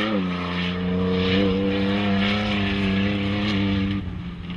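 Off-road desert race vehicle's engine running at high revs, its pitch held nearly steady with small wobbles for about four seconds, then dropping off suddenly near the end.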